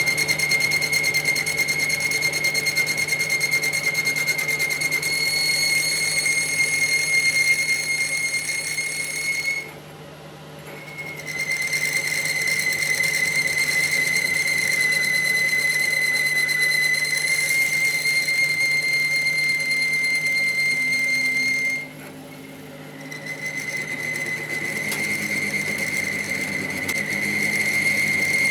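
Steel being cut on a lathe, giving off a steady, high-pitched whistling squeal over the machine's low hum. The squeal drops out twice for about a second and a half each, first about ten seconds in and again about two thirds of the way through, then comes back.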